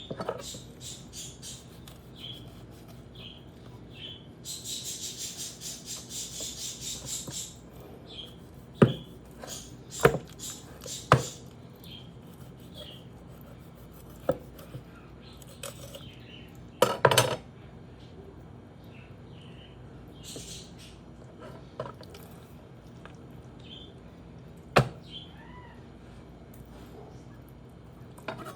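Knife work on a raw whole chicken: a run of quick scraping cutting strokes a few seconds in, then several sharp knocks of the blade on the cutting board, scattered through the rest.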